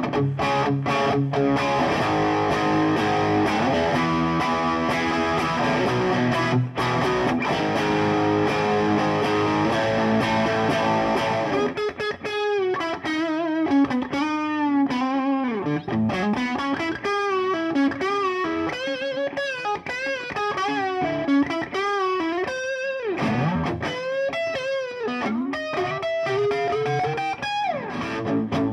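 Ibanez semi-hollow electric guitar with a Stonewall Slutty Wolf H90 (humbucker-sized P90) neck pickup, played through overdrive. It starts with sustained distorted chords, then from about twelve seconds in switches to single-note lead lines with string bends and vibrato.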